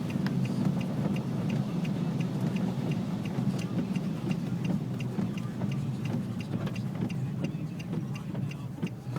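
Car running and driving, heard from inside the cabin as a steady low engine and road hum, with a faint regular ticking about three times a second.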